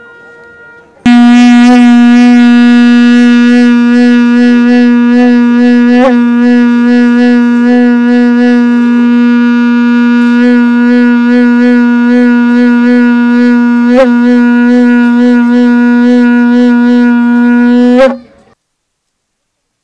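A blown horn sounding one long, steady note with a bright, buzzy edge, starting about a second in and cutting off suddenly near the end.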